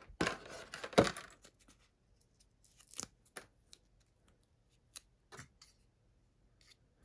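Paper instruction sheet and cardboard kit box rustling as they are handled, with a sharp knock about a second in. After that come a few small separate clicks of plastic model-kit parts being picked up and pressed together.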